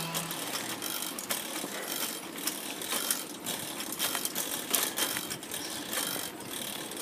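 Bicycle being ridden, its chain and freewheel giving off irregular ticking and rattling clicks over steady rolling noise.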